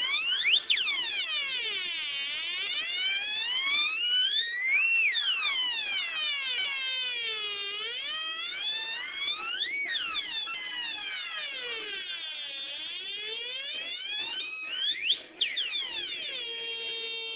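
Two-555-timer siren synthesizer sounding continuously, its electronic tone sliding up and down in pitch in repeated siren sweeps whose speed and range keep changing.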